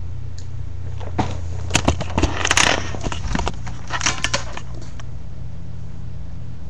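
Handling noise from a camera being moved: a cluster of knocks, rubbing and crackles lasting a few seconds, loudest about two and a half seconds in, over a steady low electrical hum.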